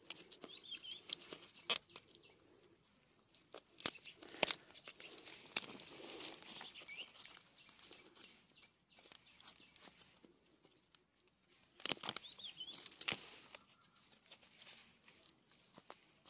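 Rustling and scattered sharp clicks of close handling, the loudest about four seconds in and again near twelve seconds, with a few short high bird chirps in the background.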